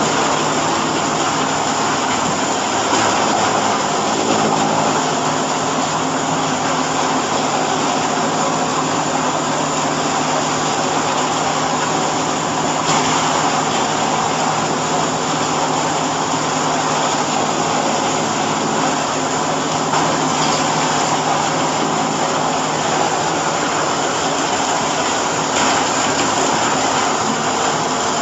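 Corn silage baling machine running: a steady machinery noise with a low hum.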